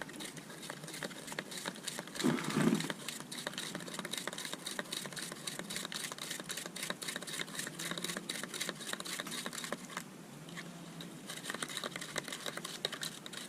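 A brush stirring and scrubbing a baking soda and water solution inside a plastic bottle: a fast, continuous run of scratchy clicks, with a brief louder noise about two seconds in and a short lull about ten seconds in.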